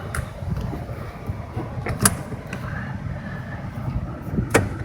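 Driver's seat belt of a Toyota Camry being buckled and tugged: a few sharp clicks from the latch and the locking retractor, the loudest about two seconds in, over a low rumble of handling.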